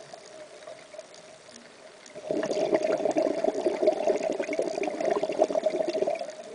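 Scuba diver exhaling through a regulator underwater: a loud stream of bubbles gurgling, starting about two seconds in and lasting nearly four seconds. Under it are faint crackling ticks and a steady hum.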